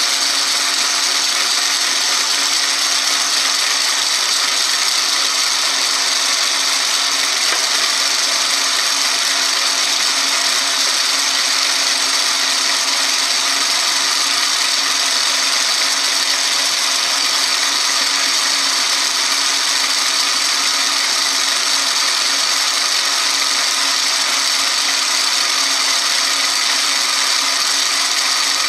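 Metal lathe in back gear turning a welded-up steel tractor PTO gear part, the tool taking a steady cut under coolant. It gives an even, unchanging machining noise with several held tones through it.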